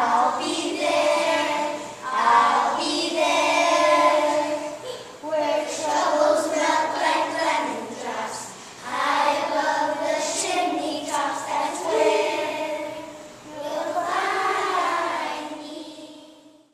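A children's choir of first graders singing together in phrases, with short breaks between lines; the singing fades out near the end.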